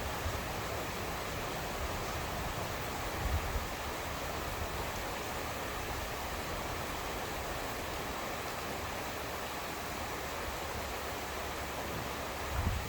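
Steady rain falling hard, a constant even hiss, with a brief low bump about three seconds in and another near the end.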